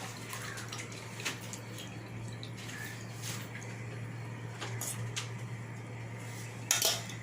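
Herbal decoction being strained into a glass: faint dripping and trickling of liquid through the strainer over a steady low hum, with one sharper knock near the end.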